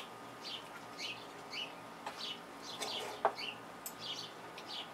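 Small birds chirping outdoors, short high downward-sliding chirps about two a second, with one sharp click about three seconds in.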